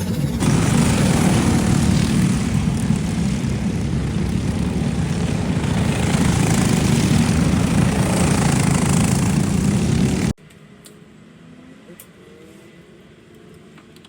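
Racing go-kart's Briggs & Stratton 206 single-cylinder four-stroke engine running loud and steady at speed, stopping abruptly about ten seconds in and leaving a quiet background with a few faint clicks.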